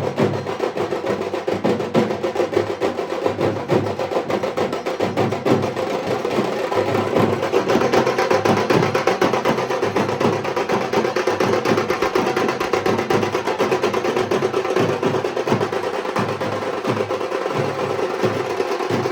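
Dhak drums played with sticks in a fast, unbroken roll of strokes.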